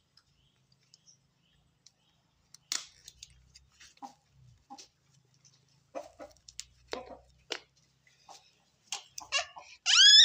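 Plastic crinkling and light clicks from a disposable diaper being fastened on a baby monkey, in short scattered bursts. Near the end the baby monkey gives a brief high squeal that bends in pitch, the loudest sound here.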